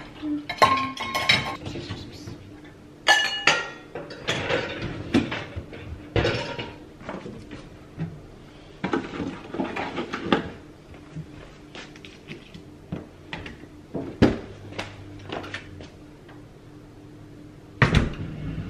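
Dishes, pans and cutlery clinking and knocking against each other and against the wire racks of a Miele dishwasher as it is loaded, the racks rattling as they are moved. A heavier thump near the end as the dishwasher door is shut.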